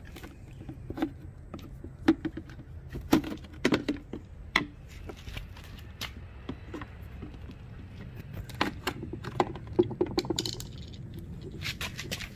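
Screwdriver prying rubber intake boots out of a Honda Rancher ATV's plastic airbox: an irregular scatter of sharp clicks and knocks as the tool and boots work against the hard plastic.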